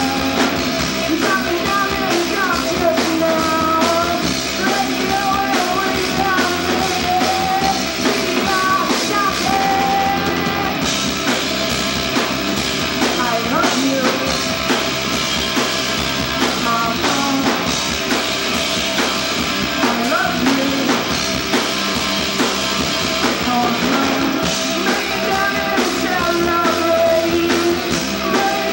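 Live rock band playing a song: a singer on a microphone over electric guitar, bass guitar and drum kit.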